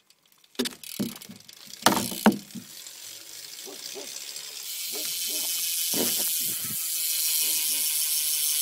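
BMX rear hub (a Premium hub) freewheeling. A few sharp knocks come in the first two and a half seconds, then the pawls' clicking builds into a fast, steady ratcheting buzz as the rear wheel spins.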